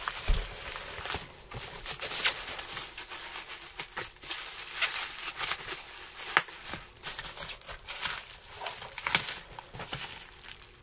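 Plastic bubble wrap crinkling and crackling as it is handled and unwrapped, with irregular sharp crackles throughout. There is a low thump just after the start.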